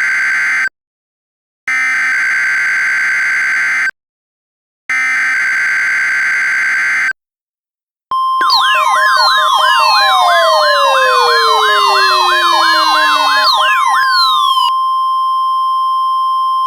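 Mock NOAA Weather Radio alert test. It opens with the tail of one SAME digital header burst, then two more data bursts about a second apart. After a second's pause the steady warning alarm tone starts; for about six seconds it is overlaid with wailing, falling siren sweeps, and then it continues alone.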